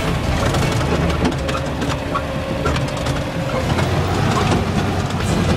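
Engine drone and loose clattering heard inside the cab of an old bush-basher driving over rough, uneven ground, with many small knocks and rattles from the body.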